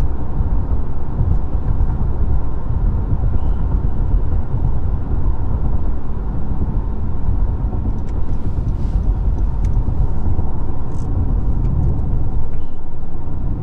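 Steady low rumble of road and engine noise heard inside the cabin of a car driving along.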